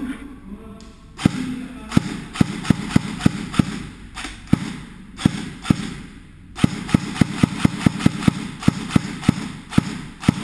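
Airsoft M4A1 rifle firing rapid single shots, about three a second, in two strings of roughly fifteen shots each with a short break midway.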